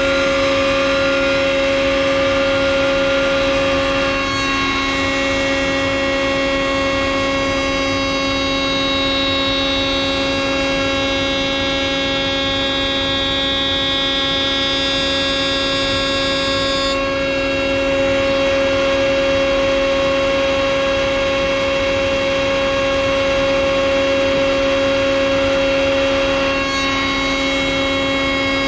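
Table-mounted router running at full speed with a steady high whine while a board is fed past the bullnose bit, a dust collector running with it. The upper part of the whine shifts a few times as the wood is pushed through the cut.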